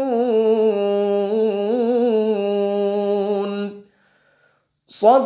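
Solo male voice reciting the Quran in melodic tilawah style in maqam Bayyati, drawing out a long ornamented note with a wavering pitch. The voice stops just before 4 s, there is about a second of silence, and it starts again near the end.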